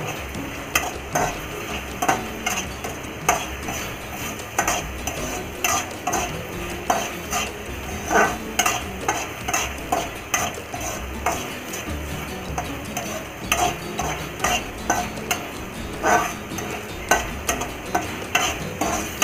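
A flat metal spatula stirring and scraping a thick, cooking sauce around a metal kadhai, in irregular scrapes about one or two a second, over a steady sizzle from the pan.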